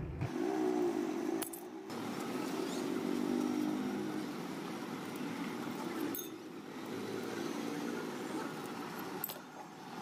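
Faint metallic clinks and rattles as a refrigerator compressor's motor stator and housing parts are handled and lifted apart, over a low steady hum. The sound breaks off briefly three times.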